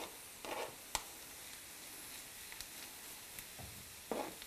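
Grated carrot and celery root being scraped off a cutting board into a frying pan: soft rustling and squishing of the shredded vegetables, with one sharp knock about a second in as the board taps the pan, and a few light ticks after.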